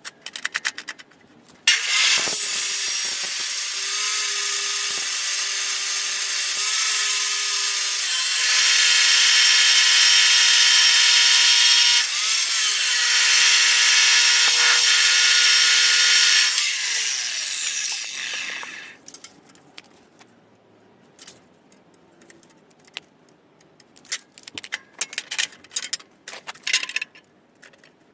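Electric power saw running for about sixteen seconds, cutting. It grows louder about a third of the way in and winds down in pitch as it stops. Scattered clicks and knocks come before and after.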